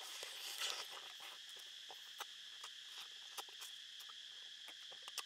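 Close-up eating sounds as a shrimp held in the fingers is sucked and chewed: a louder wet sucking stretch about half a second in, then scattered sharp smacking clicks. Underneath runs a steady high drone of forest insects.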